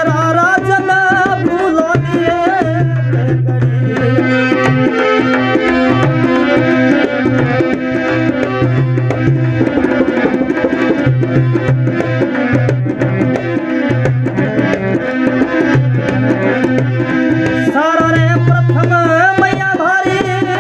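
Rajasthani folk devotional music: dholak drum and khanjari jingle tambourine playing a steady rhythm under sustained held notes, with a gliding melodic line near the start and again near the end.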